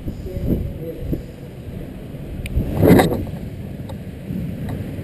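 Inline skate wheels rolling over smooth garage concrete, a steady low rumble, with one loud, sharp scrape about three seconds in.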